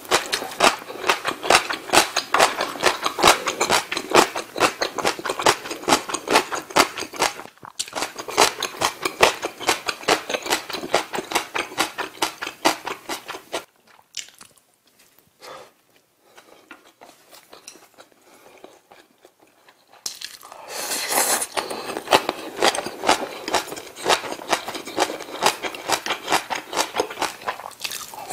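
Close-miked chewing of home-cooked Korean food: rapid, crisp crunching and mouth sounds. It goes much quieter for several seconds midway, then the chewing starts again.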